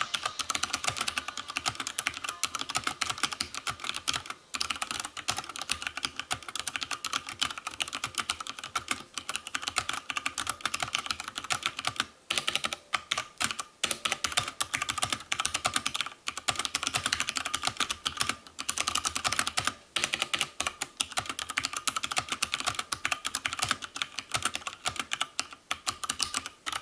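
Mechanical keyboard with Cherry MX Brown switches being typed on fast: a dense, continuous patter of keystrokes with a few short pauses.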